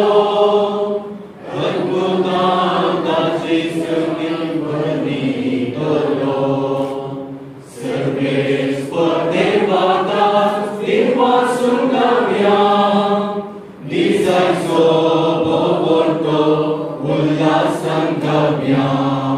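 A hymn sung by a man's voice through a microphone, with a small group singing along, in long phrases with short breaks between them.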